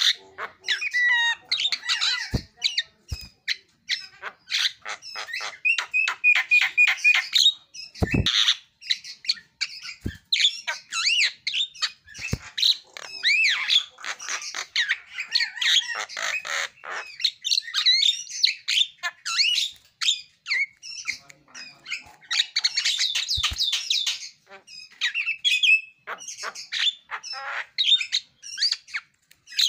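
Javan myna singing a long, varied run of whistles, squawks, chirps and rapid repeated notes, its mimicked 'isian' phrases. A few dull thumps come through, the loudest a little after 8 seconds in.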